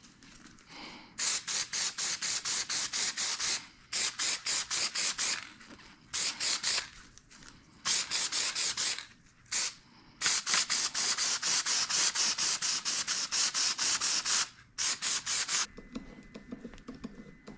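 Rapid back-and-forth rubbing strokes, about six a second, in runs of one to four seconds with short pauses between them, as something is worked over a surface by hand.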